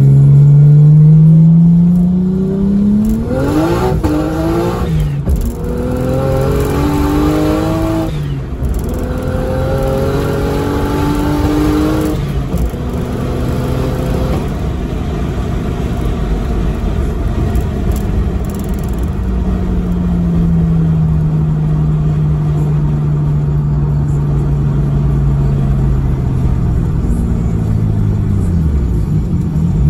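Toyota Soarer's 1JZ straight-six under hard acceleration, heard inside the cabin: the revs climb and drop back at each of several quick upshifts in the first dozen seconds. After that there is steady road noise, then a long slow fall in revs as the car slows, and a short rise in revs near the end.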